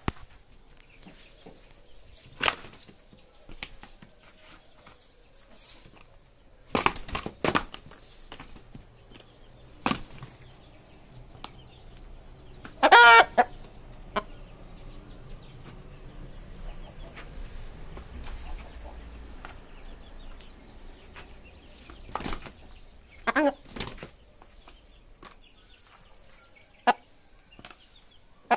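Indian game rooster flapping its wings and striking at a person's foot in territorial aggression, giving scattered sharp slaps of wings, with two short calls, a loud one about halfway through and a fainter one later.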